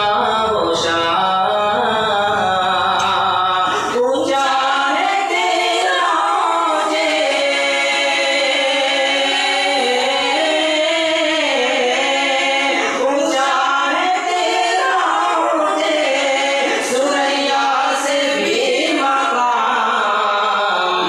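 Singing of an Urdu farewell tarana, long held notes gliding up and down, with no instruments standing out.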